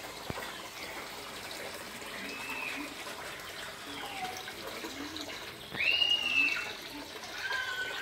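Water running and trickling in a steady hiss, with a few short, high gliding chirps over it, the loudest about six seconds in.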